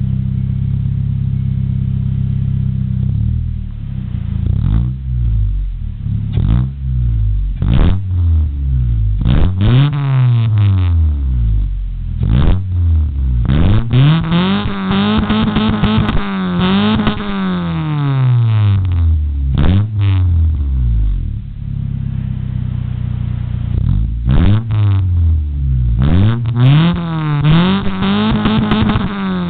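1993 Honda Accord's 2.2-litre four-cylinder engine, breathing through a 2-inch Cherry Bomb muffler with no catalytic converter, idling and then revved over and over. Quick blips and longer revs rise and fall in pitch and drop back to idle between them.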